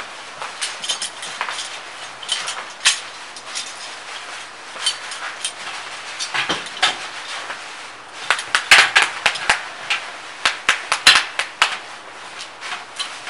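Sharp metallic clicks and clanks of locking C-clamps being handled and set against a copper sheet cone. They are scattered at first, then come in a quick, louder flurry in the second half.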